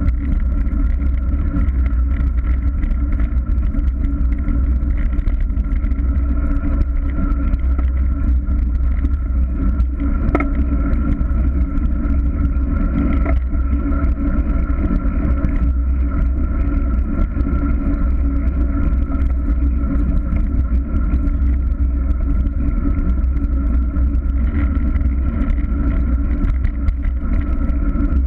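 Steady wind rush and road rumble on the microphone of a camera mounted on a moving bicycle, loudest in the low end and unchanging throughout.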